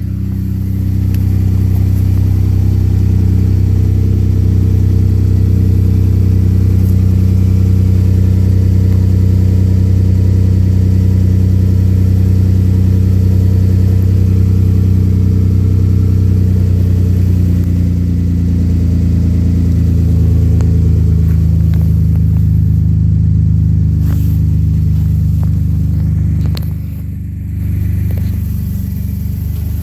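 A 2013 Ford F-150's 3.5 L twin-turbo EcoBoost V6 idling after a cold start through a 4-inch MBRP cat-back exhaust with a Flo-Pro twister resonator, giving a steady deep exhaust note. The idle drops slightly about twenty seconds in, and the sound is briefly quieter near the end.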